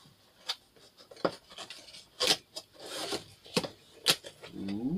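Cardboard shipping box being opened by hand: scrapes and rubbing of cardboard flaps, broken by sharp cracks, two of them louder than the rest. Near the end a short hummed voice sound begins.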